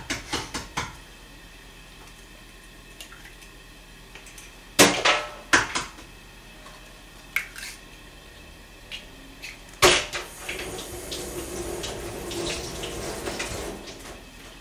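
Eggs being cracked against the rim of a nonstick wok: sharp knocks about five seconds in and again near ten seconds. A soft hiss follows for a few seconds.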